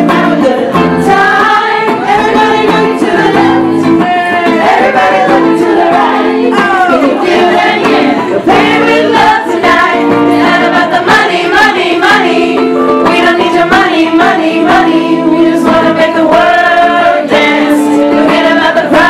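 Music: a group of voices singing a worship song together, led by a woman's voice, with guitar accompaniment.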